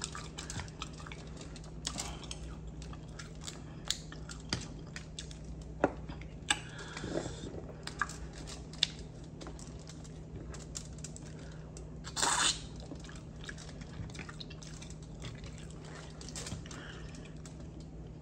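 Black mussel shells clicking and clacking as they are handled and pried open by hand, with wet sauce squelches and chewing. A steady low hum runs underneath, and a brief louder rustle comes about twelve seconds in.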